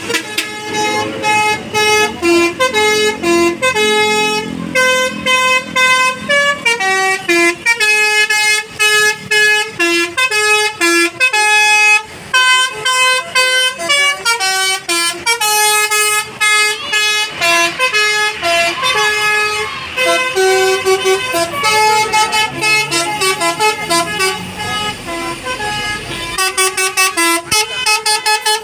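Bus 'telolet basuri' musical horn playing a tune, loud pitched notes stepping rapidly from one to the next.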